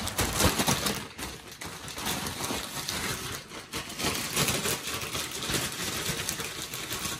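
Plastic bag holding beef cubes, flour and seasoning shaken hard to coat the meat, with rapid, irregular crinkling and rustling of the plastic throughout.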